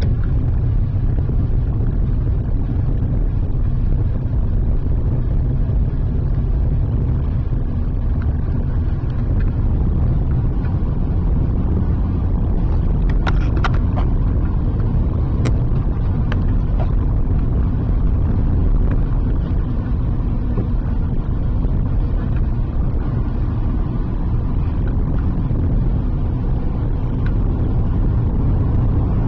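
Steady low rumble of a car on the move, road and engine noise, with a few sharp clicks about halfway through.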